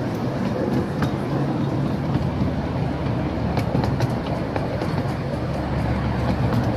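Miniature railway train running, heard from on board an open carriage: a steady low rumble of wheels on track, with a few light clicks.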